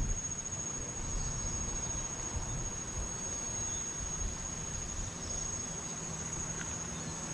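An insect's steady, unbroken high-pitched drone, with a low rumble underneath.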